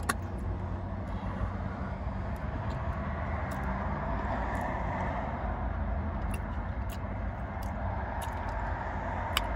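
Steady low rumble of the car's interior, with a few faint clicks of chewing.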